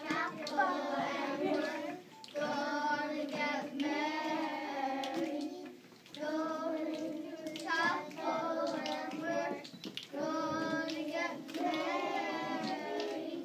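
A group of young children singing a song together, line by line, with short breaks between the lines.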